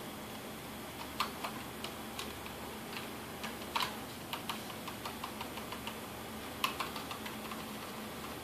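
Keys on a computer keyboard being pressed in an irregular run of clicks, starting about a second in, with a few louder taps. These are key presses, Delete and F1, made during start-up to get into the BIOS.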